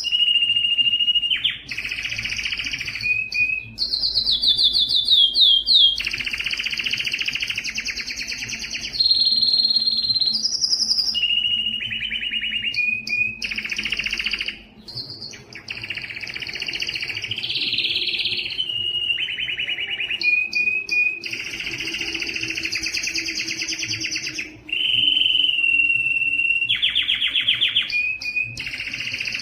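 Domestic canary singing a long, unbroken song: phrases of rapid trills and rolls, each repeated fast for a second or two before switching to the next, mixed with a few clear held whistles.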